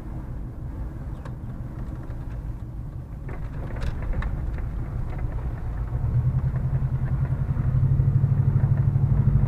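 Vehicle engine running with a steady low hum. It grows louder about six seconds in, with a regular pulsing.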